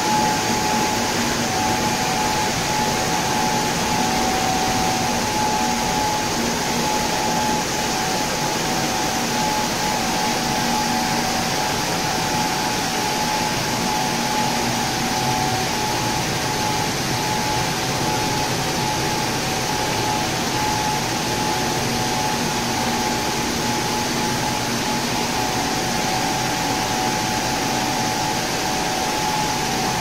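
Industrial cut-vegetable washing machine running: a steady rush of water and air with a constant machine whine and hum.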